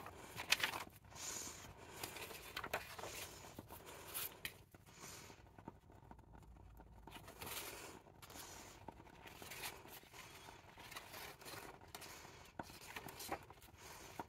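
Faint paper handling: pages of a junk journal signature being leafed through and shuffled, with scattered soft rustles and light taps.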